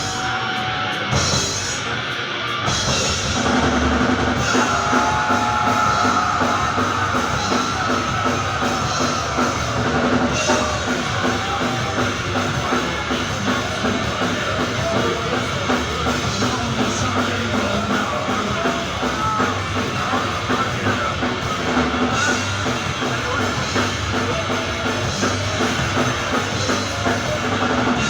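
Heavy metal band playing live: a guitar alone at first, then drums, bass and distorted guitars come in together about three seconds in and drive on at full volume.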